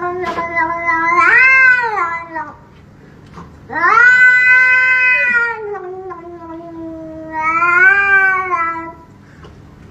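A cat giving three long, drawn-out yowling meows, each rising and then falling in pitch, with short pauses between them.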